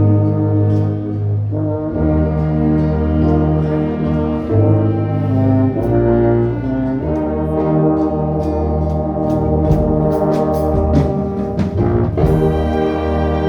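Orchestra playing Christian instrumental music, with the brass section to the fore. It plays held chords that change every couple of seconds, and short percussion strikes come in during the second half.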